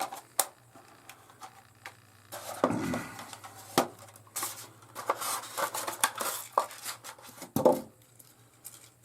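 Hands handling toy parts and plastic packaging during an unboxing: scattered sharp clicks and light knocks with bursts of rustling.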